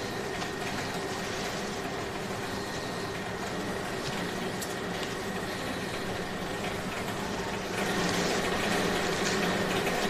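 Luggage wrapping machine running with a steady motor hum as it spins a suitcase and winds it in plastic film, louder for about the last two seconds.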